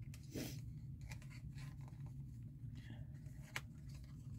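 Faint handling sounds of fingers fiddling with a small adjustable costume ring: light rustles and ticks, with one sharper click about three and a half seconds in.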